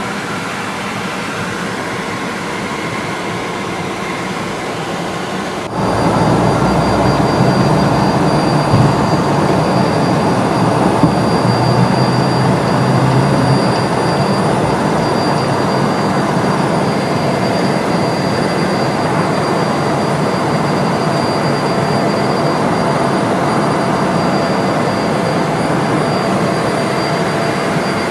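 Cabin noise of a Cessna CitationJet CJ3 (525B) during takeoff: its twin turbofans running at high power as a steady roar with a faint high whine. The noise gets suddenly louder about six seconds in, with a low rumble that fades after about fourteen seconds as the jet climbs out.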